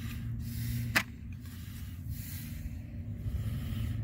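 A sharp click about a second in as the plastic soap-bottle attachment of a pressure washer is handled, over a steady low rumble.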